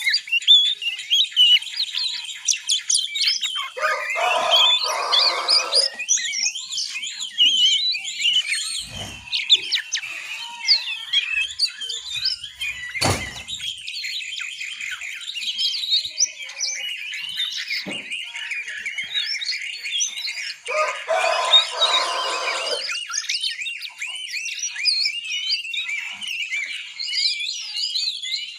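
Young oriental magpie-robins (kacer) giving the 'ngiriwik' chatter of juveniles learning to sing: a dense, unbroken run of rapid high chirps and trills. Two lower, rougher bursts come about four and twenty-one seconds in, and a sharp knock sounds about thirteen seconds in.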